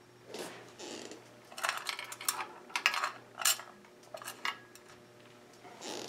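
Irregular clinks and short rattles of hard objects being handled, loudest in the middle. Under them runs the faint steady hum of an Encon Empress ceiling fan's motor.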